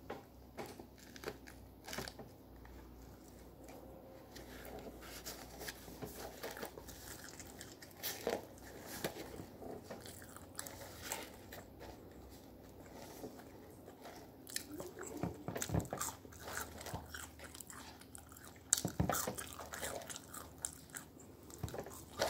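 A person biting into a sandwich and fries and chewing close to the microphone: irregular crunches, clicks and mouth smacks, with a few louder bites in the second half.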